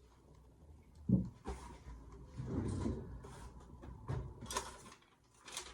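Handling and rummaging: a few knocks and thumps with rustling, then short crisp rustles of a paper receipt being handled near the end.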